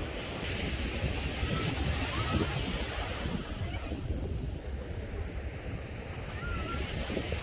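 Ocean surf breaking and washing up the sand, its hiss swelling and then fading, with wind rumbling on the microphone.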